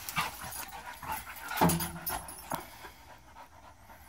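Two Australian shepherds panting hard during rough play, with scuffling and one louder short low-pitched sound about a second and a half in.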